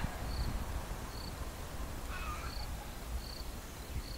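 Cricket chirping: short, high chirps about once a second, over a low rumble.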